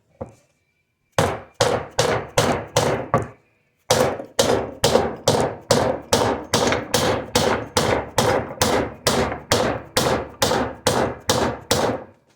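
Dead blow hammer striking a seal installer tool in a steady rhythm of about three blows a second, driving a crankshaft seal down into place. A short run of blows, a brief pause about three seconds in, then a long unbroken run.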